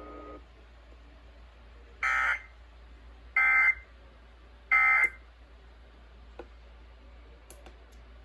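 Three short electronic beeps from a NOAA weather alert radio, a little over a second apart.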